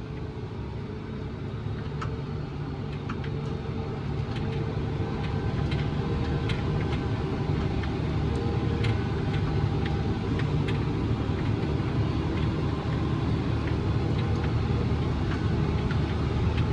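Farm tractor engine running steadily, getting louder over the first several seconds and then holding, with scattered light clicks and rattles over the drone.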